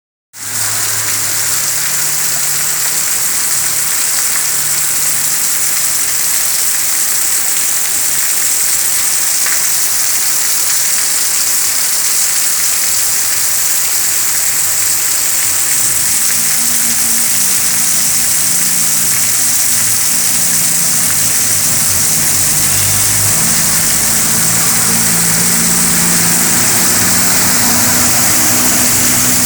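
Steady heavy rain falling, with a low motor hum underneath that grows louder from about halfway through.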